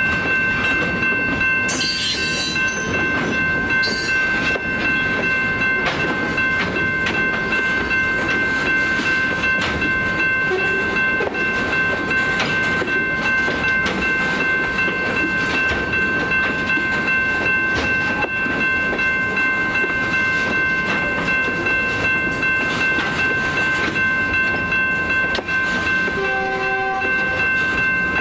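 Slow freight train rolling past, with rail clatter and a rumble under a steady high-pitched whine. There is a brief sharp noise about three seconds in. Near the end the lead SD40-2 locomotive sounds its fouled K3LA air horn in a short blast.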